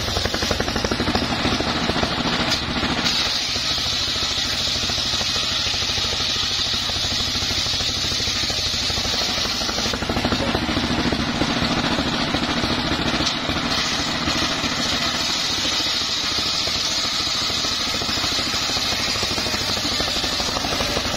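Homemade circular saw bench ripping a teak pole lengthwise: the motor and blade run steadily under load with a high-pitched cutting noise that shifts a little as the log is fed through.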